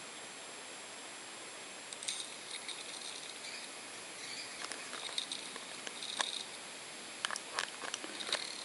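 Opened Fujitsu laptop hard drive running with its cover off: a steady faint high tone from the spinning platters, with scattered clicks and short scratchy chatter from about two seconds in as the head arm seeks across the disk.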